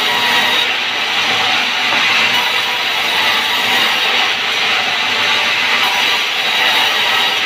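Vertical band saw ripping a squared wooden timber lengthwise: a loud, steady hiss of the blade cutting through the wood.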